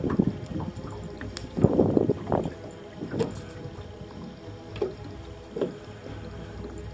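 Water lapping and slapping against the hull of a boat in irregular splashes, the biggest about a second and a half in, over a faint steady hum.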